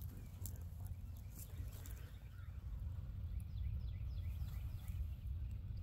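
Outdoor woodland ambience: a steady low wind rumble on the microphone, with a run of short, falling bird chirps about two to four seconds in.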